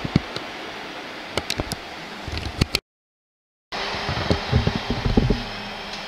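Wind on the microphone over the running of an electric double-deck regional train at a station, with scattered clicks and knocks. The sound cuts out completely for about a second just before the middle, then comes back with low thumps and clatter as a train draws near.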